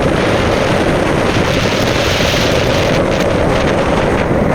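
Waterfall in monsoon flow: a loud, steady rush of falling water.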